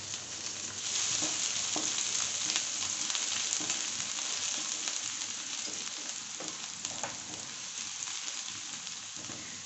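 Chopped garlic sizzling in hot oil in a kadai (wok), stirred with a wooden spatula, with a few light knocks of the spatula against the pan. The sizzle swells about a second in, then slowly eases off.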